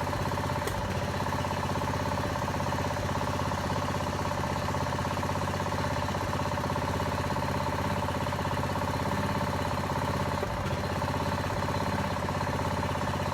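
The small engine of a hydraulic jacking machine running steadily while it pressurises the pier jacks to lift settled steps.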